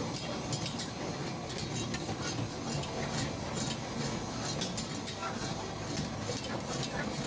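Metal utensils clinking and scraping against cookware, many quick clinks over a steady background din, with voices in the background.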